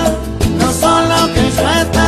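A song playing: a singing voice over bass and drums, in a Latin dance style.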